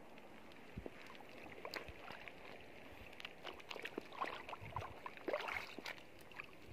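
Footsteps wading through shallow seawater, with small splashes and sloshing that grow busier about halfway through.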